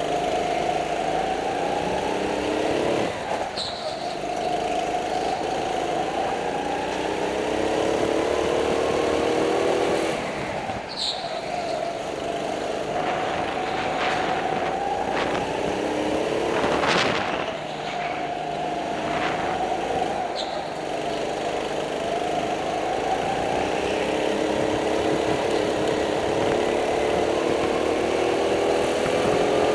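Go-kart engine heard from on board, its pitch rising as it revs out along the straights and falling away each time the driver lifts for a corner, several times over.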